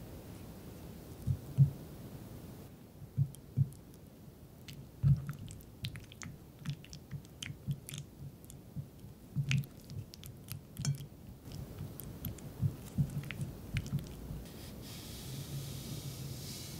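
Silicone spatula pressing and smearing softened butter against the side of a glass mixing bowl: irregular soft thumps with light clicks. Near the end, sugar poured onto the butter makes a steady hiss.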